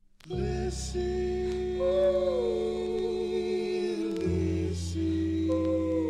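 Opening bars of a recorded song: held chords, changing once about four seconds in, under a wavering melody line with vibrato, with a few light cymbal-like strokes.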